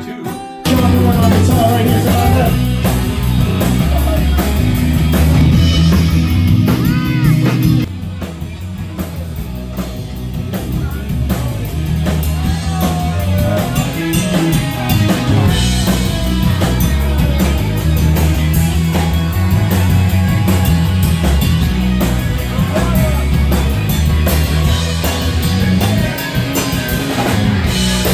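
Live rock band playing: drum kit, bass and guitar, coming in loud about a second in, with a brief drop in level around eight seconds.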